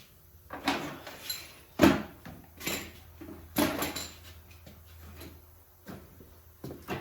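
Irregular knocks and clatters, like objects or tools being handled and set down on a hard surface, the loudest a sharp knock about two seconds in.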